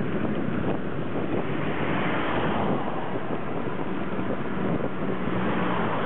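Steady wind rush on the microphone of a moving bicycle, swelling a little about two seconds in and again near the end.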